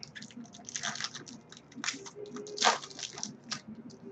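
Stiff chromium football trading cards being flipped through by hand: quick, irregular rustles and flicks of card sliding against card, the loudest a little past the middle.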